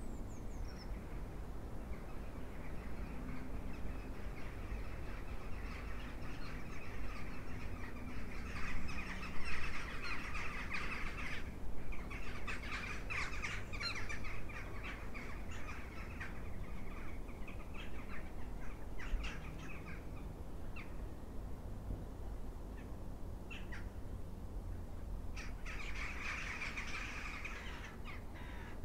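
A flock of crows cawing, many harsh calls overlapping, thickest about nine to eleven seconds in, then sparser, with another dense cluster near the end.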